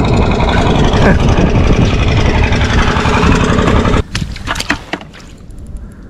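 Loud, steady wind buffeting the microphone, a rumbling noise heaviest in the low end. It drops away suddenly about four seconds in, after which a few faint clicks are heard.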